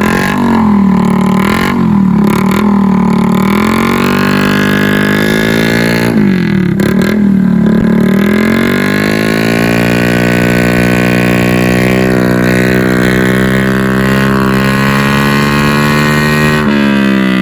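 Motorcycle engine revved through an open SC Project elbow pipe with the canister removed. The revs dip and climb several times in the first eight seconds, then are held high and steady for about eight seconds before falling near the end.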